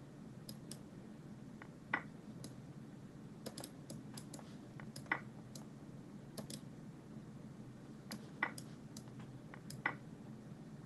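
Scattered clicks of a computer mouse as chess pieces are moved on screen: a run of light, quick clicks with a few louder ones about two, five, eight and ten seconds in, over a faint low hum.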